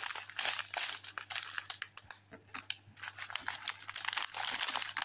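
Clear plastic bags of diamond-painting drills crinkling as they are handled and shuffled, with a brief lull about two seconds in.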